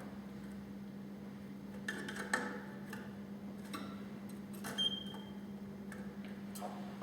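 A domestic canary pausing between song phrases: a few brief chirps and clicks, with one short high whistle about halfway through, over a steady low hum.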